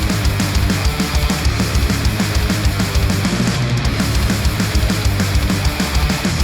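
Heavy rock music with guitar, strong bass and a fast, dense beat, played through headphones and picked up by microphones.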